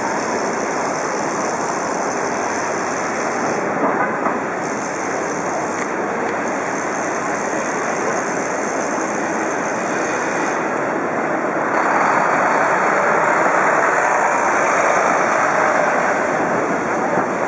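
Steady din of city street traffic, with a few brief knocks about four seconds in; the noise grows louder about twelve seconds in.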